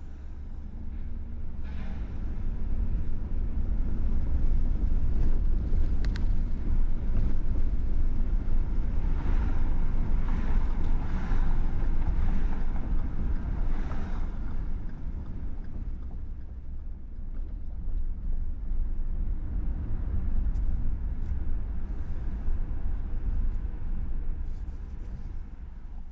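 Road vehicle noise: a steady low rumble that swells louder a few seconds in and eases off again past the middle.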